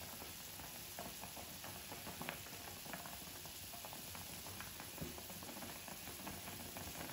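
Water at a rolling boil in a shallow pan with potato dough balls cooking in it: a steady, faint bubbling with a few small ticks.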